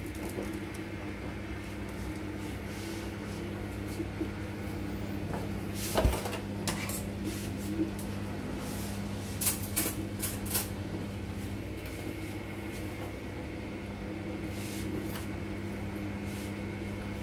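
CATLINK self-cleaning litter box's motor running with a steady hum as its drum turns, starting just after the beginning. A few knocks and clicks sound over the hum, the loudest about six seconds in and several more a few seconds later.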